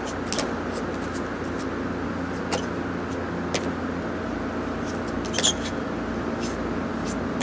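Shoes and hands scuffing and tapping against a concrete-block wall and ledge during a wall climb: a few short sharp scrapes, the loudest about five and a half seconds in, over a steady low hum.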